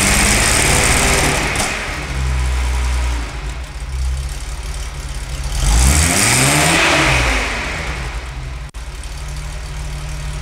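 Datsun 240Z's 2.4-litre L24 inline-six engine pulling under load, its revs climbing and falling back twice, loudest near the start and again about six seconds in.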